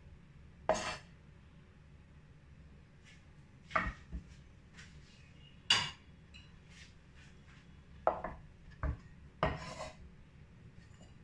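A Chinese cleaver knocking and scraping on a wooden cutting board, with a ceramic plate set down on the board, making about seven separate knocks, some with a short scrape, spaced a second or more apart.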